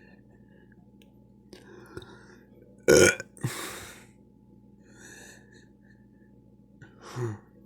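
A loud burp about three seconds in, followed by a breathy exhale. A shorter sound with a falling pitch comes near the end.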